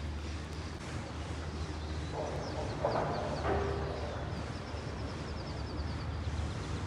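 Steady low hum of a cable car ride. About two seconds in, a bird call of a second or so rises above it, and quick high bird chirps follow near the middle.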